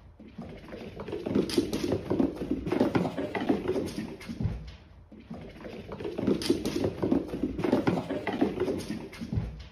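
A cat's paws drumming rapidly on a hard wooden floor as it runs at full speed. The patter comes in two swells, with a short lull about halfway.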